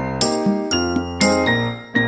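Light, bouncy background music: bright keyboard-like notes struck about twice a second over a steady bass line.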